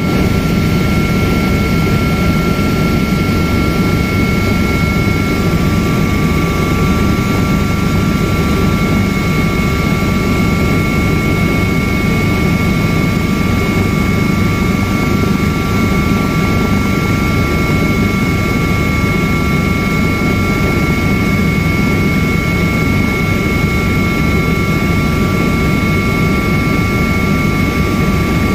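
Helicopter cabin noise in flight: the turbine engine and rotor make a loud, steady roar with a high, unchanging whine over it.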